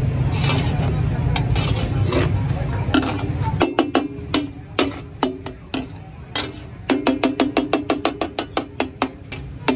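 Metal spatulas striking a steel tawa griddle in quick runs of sharp, ringing clacks, the rhythmic tawa chopping of street cooking. For the first few seconds a steady low rumble covers everything, then cuts off suddenly.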